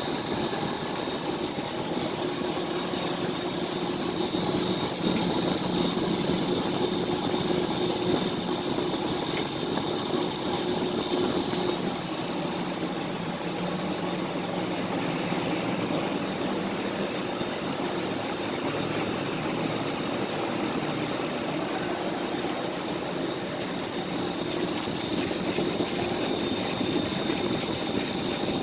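Very large belt-driven smoke exhaust fans running steadily: a constant rush of air over a low hum, with a thin, steady high whine.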